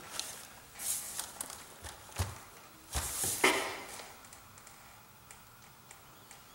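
A few light knocks and rustling handling noises, the loudest about three seconds in, then quiet.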